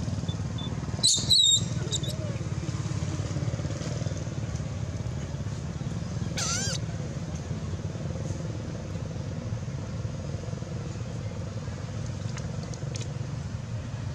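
Infant long-tailed macaques squealing: a couple of shrill cries about a second in, the loudest sound, and one wavering high squeal about six seconds in. Under them runs a steady low rumble like motor traffic.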